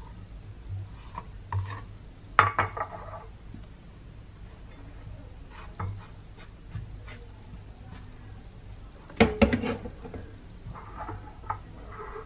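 Chopped garlic being gathered and scraped off a cutting board into a bowl of meat: rubbing and scraping with clusters of clattering knocks from the board against the bowl, loudest about two and a half seconds in and again about nine and a half seconds in.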